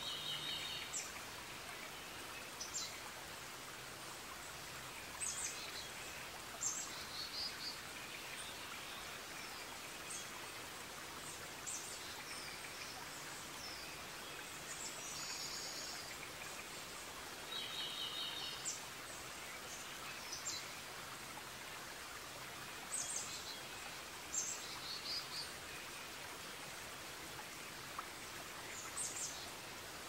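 Forest ambience: birds chirping and trilling at irregular intervals over a steady background hiss.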